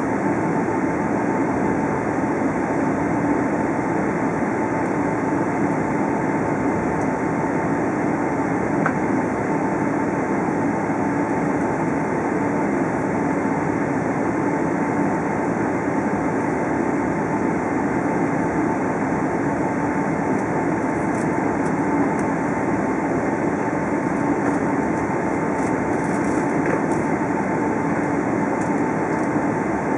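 Cabin noise inside a Boeing 777-300ER taxiing: a steady, even rumble with a constant high tone running through it, unchanging throughout.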